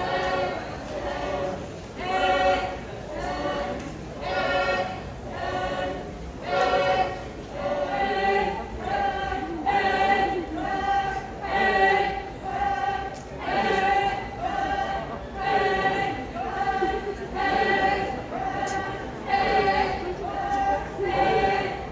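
A group of voices singing a rhythmic Tangkhul Naga dance chant in unison, the phrase pulsing about once a second. From about eight seconds in, a higher sustained note rides over the beat.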